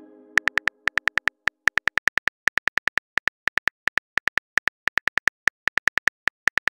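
Simulated phone keyboard typing sound: rapid short key clicks, each with a light pitched tick, about seven a second at an uneven pace as a message is typed. The ringing tail of a message chime fades out in the first second.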